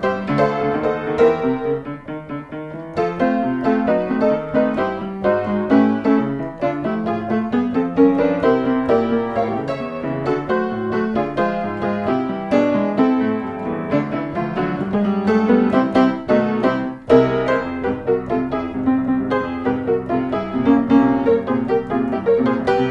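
Background piano music, a steady stream of quick notes.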